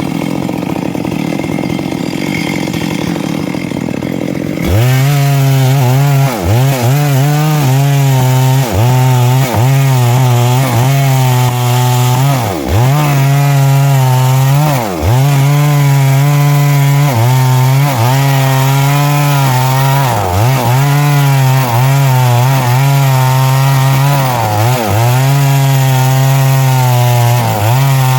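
Stihl MS 382 two-stroke chainsaw with a 24-inch bar, idling for the first few seconds, then opened up at about five seconds to cut through a large log. The engine's pitch dips again and again as the chain loads up in the wood, and the revs drop away at the very end.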